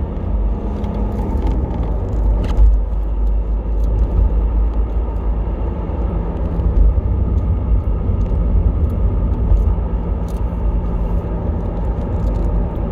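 Car cabin noise while driving: a steady low rumble from the road and engine, with one short thump about two and a half seconds in.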